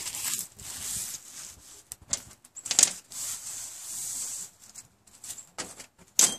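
A spark striker rasping against a fire steel to throw sparks onto a piece of char cloth. There are two longer scrapes and several short, sharp strikes.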